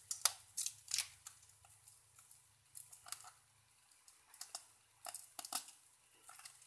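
Papery skin of a garlic clove crackling and tearing as it is rubbed and peeled between the fingers, in short scattered bursts of faint crinkly clicks.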